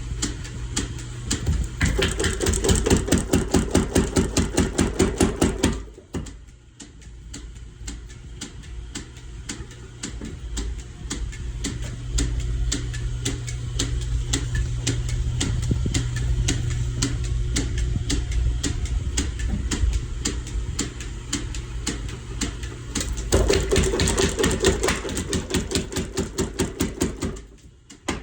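Little Giant mechanical power hammer running, its ram striking in heavy, regular blows about four a second. In a long quieter stretch the drive keeps humming under lighter, faster ticking, and then the heavy blows come again near the end.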